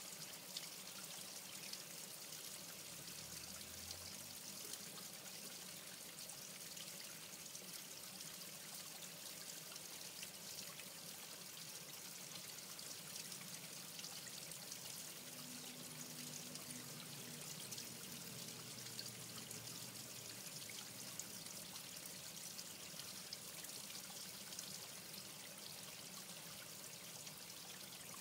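Faint, steady trickle of water running into a garden pond, with a fine patter of small splashes.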